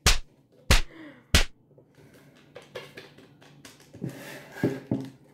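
A small sugar sachet tapped sharply three times, about two-thirds of a second apart, to shake sugar into a plastic blender jar. Then quieter light ticks, a brief rustle of the packet and two soft knocks near the end.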